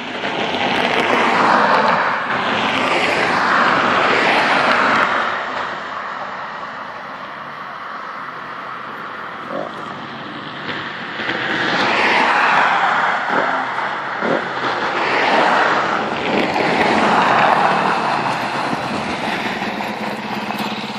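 Husqvarna SMR 125 two-stroke supermoto engine revving up and down in repeated swells, settling to a quieter steady run in the middle before revving again.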